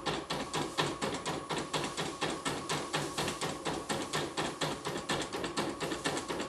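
A portable computerized embroidery machine stitching a design: a rapid, even run of needle-bar clicks, several stitches a second, a test run after repair.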